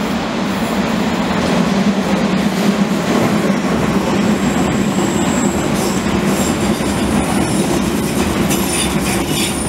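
London Underground S Stock train running past close on curved track: a steady rolling rumble, with high-pitched wheel squeal coming in about halfway.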